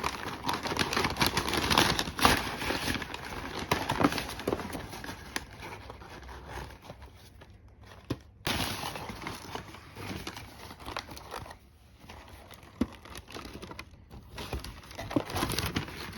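Rustling and crinkling handling noise with scattered clicks and taps, broken by a short drop-out about eight seconds in.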